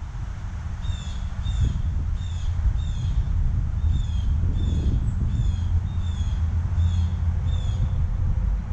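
A bird calling a series of about a dozen clear, downslurred notes, about two a second, with a short break in the middle, over a steady low rumble.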